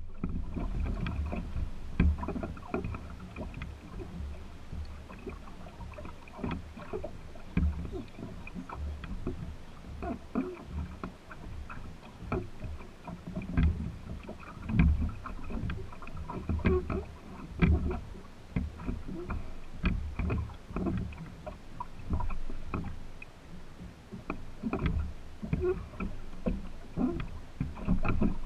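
Water lapping and slapping against the wooden hull of a small sailboat under way, in irregular knocks and swells.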